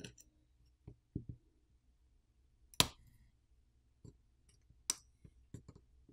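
Scattered sharp clicks as small cable connectors are popped off a Nokia X20 smartphone's main board with a pry tool. The two loudest clicks come a little under three seconds in and about five seconds in.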